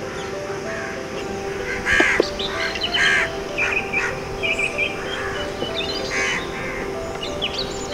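Crows cawing several times, with smaller birds chirping, over steady background music. A single sharp knock comes about two seconds in.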